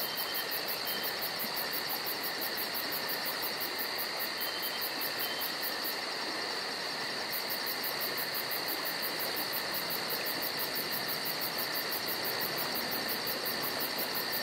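Countertop blender running steadily as it crushes Oreo cookies: an even rushing noise with a high, steady motor whine.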